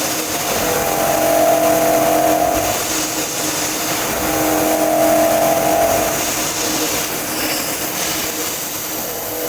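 End mill on a CNC knee mill cutting a steel block along an adaptive iMachining toolpath whose feed rate keeps changing. A steady cutting hiss runs throughout, and a pitched singing tone swells in twice, each time for about two seconds.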